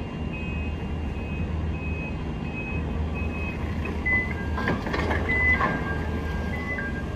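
Toyota forklift's reversing alarm beeping as it backs away from the truck: short, evenly spaced high beeps, changing to lower tones that shift in pitch about four seconds in. A low steady hum runs underneath, with a couple of clunks about five seconds in.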